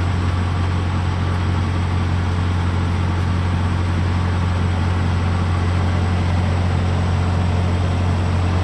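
Semi truck diesel engine idling: a steady, loud low drone that does not change.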